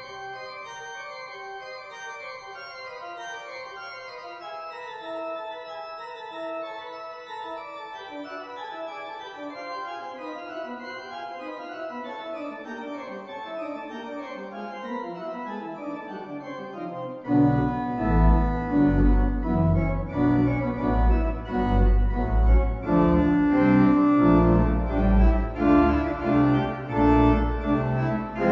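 Organ music: soft, held chords moving slowly in the upper register, then about two-thirds of the way through the bass comes in and the music grows much louder.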